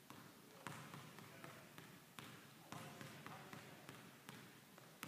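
A basketball dribbled hard on a hardwood gym floor: a run of sharp bounces, roughly two a second and unevenly spaced, each echoing briefly in the large gym.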